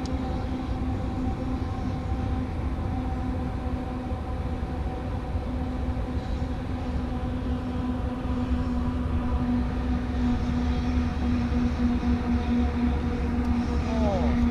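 Small boat motor running at a steady speed: a constant even hum over a low rumble, with no change in pitch.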